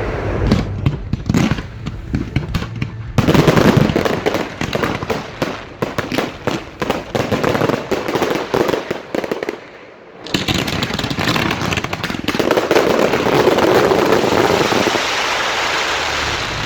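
Close-range fireworks barrage: rapid, dense bangs and crackling for about ten seconds. After a brief drop, a continuous dense wash of noise follows to the end.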